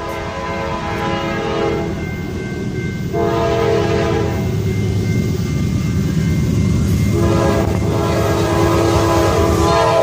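Norfolk Southern diesel freight locomotive sounding its multi-note air horn in long blasts with short breaks, over the rumble of the diesel engines and wheels. The train grows louder as it approaches and draws alongside.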